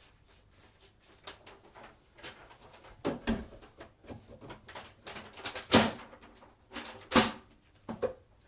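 Handling and knocking sounds in a small room: a run of light clicks and taps, with two sharp, loud knocks in the second half about a second and a half apart, like a door or drawer being shut.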